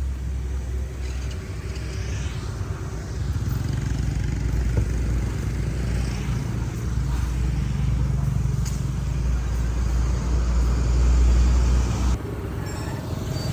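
Steady low rumble and hiss of a road vehicle on the move. It gets louder a few seconds in and drops off suddenly near the end.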